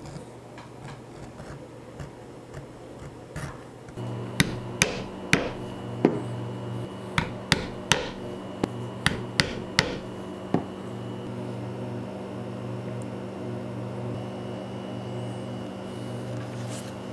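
White poly maul striking a leather beveling tool into holster leather resting on a granite slab: about a dozen sharp taps, roughly half a second apart, starting about four seconds in and stopping about ten and a half seconds in.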